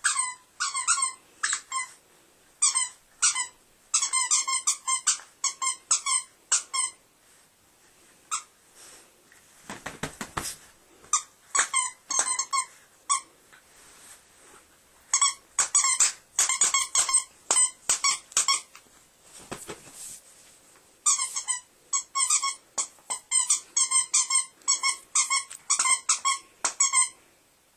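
A squeaky dog toy being bitten repeatedly by a small Maltese–Shih Tzu mix dog. It squeaks in rapid runs of several squeaks a second, with a few pauses and a rustling scuffle about ten seconds in.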